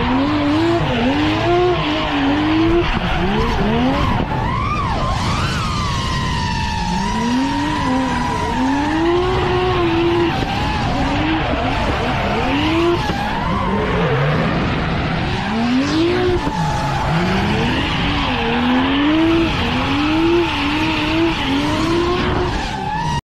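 Toyota Supra MK IV's 2JZ straight-six revving hard as the car drifts, its pitch climbing and dropping over and over, with tyres squealing and skidding underneath.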